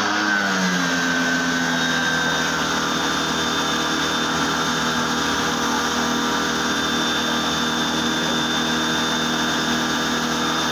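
A motor running steadily. Its pitch drops and settles in the first second, then holds even, with a faint high whine over it.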